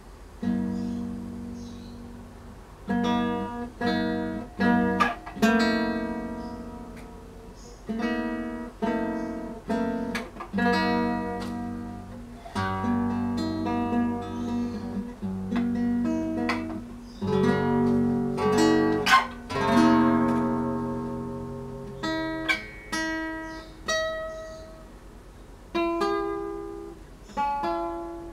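Acoustic guitar music: slow chords and single notes plucked one after another, each left to ring and die away.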